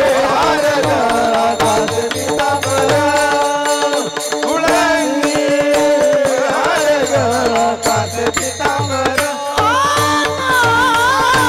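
Devotional kirtan music: long, ornamented sung notes over steady held chords, with regular hand-drum strokes in the low end, strongest near the end.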